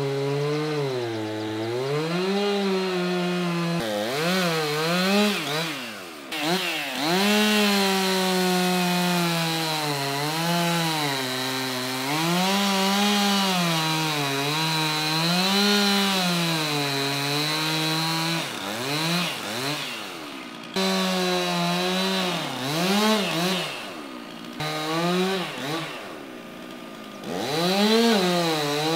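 Chainsaw making a row of equal-depth plunge cuts into a fir log. The engine pitch drops each time the bar sinks into the wood under load and rises again as it comes free, over and over, with a few abrupt breaks.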